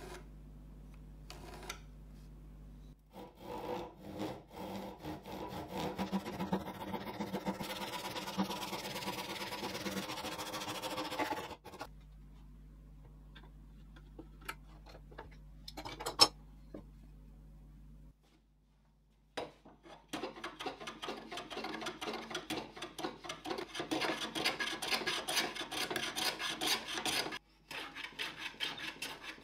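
A handsaw cutting through a walnut block in quick back-and-forth strokes for several seconds. After a pause with one sharp click, a hand plane is pushed over the walnut in a fast series of strokes, shaving off curls.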